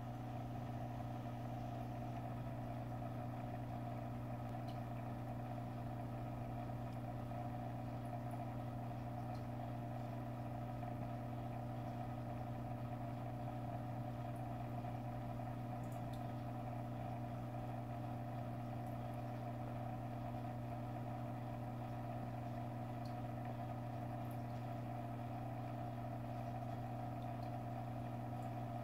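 Steady electrical hum of running reef-aquarium equipment such as the return pump and powerheads, a constant low drone with a higher overtone, with a few faint tiny ticks.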